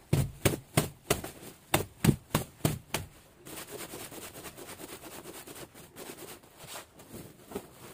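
Garlic cloves being knocked about to loosen their papery skins for peeling. About nine sharp knocks come in quick succession, then give way to a steady rustling of cloves and loose skins.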